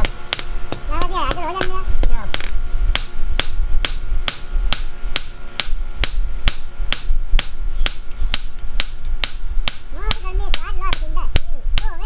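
Hand hammer forging a hot steel knife blank on a block anvil: steady metal-on-metal blows, about three a second.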